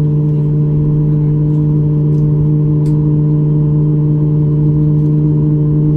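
Boeing 737 MAX 8's CFM LEAP-1B turbofan engines heard from inside the passenger cabin: a loud, steady drone with a low, even hum.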